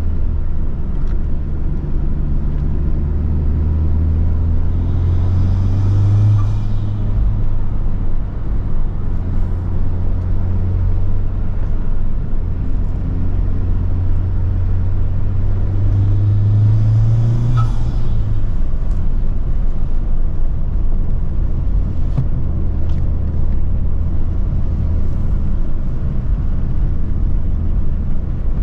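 Honda Civic Type R engine pulling under load with loud intake induction noise, its note climbing twice, at about 6 s and at about 17 s, each time with a short rushing hiss at the top before the note falls away.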